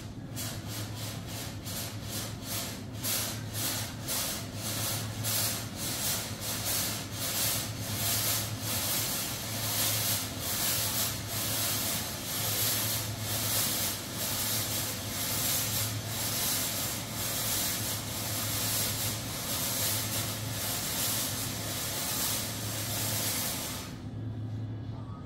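UR Fog Modular 800 Ajax security fog generator discharging fog in a test. It makes a loud, fast-pulsing hiss, several pulses a second, that stops abruptly near the end.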